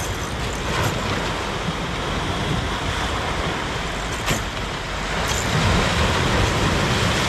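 Sea surf breaking and washing against the boulders of a rock seawall, with wind rumbling on the microphone: a steady rushing noise that swells a little louder near the end.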